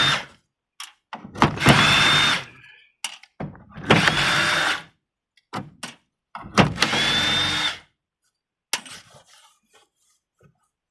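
Power drill driving screws out of a metal case in three bursts of about a second each, the motor spinning up quickly and holding speed each time. Small clicks and knocks come between the bursts; the drilling stops after about 8 seconds.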